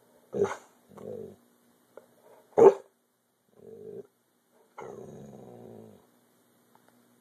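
A dog barking and growling: a short bark, a low growl, a second, much louder bark, then two more growls, the last one longer.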